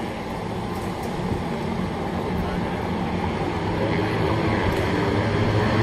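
Racing motorcycle engines heard from across the circuit, growing steadily louder.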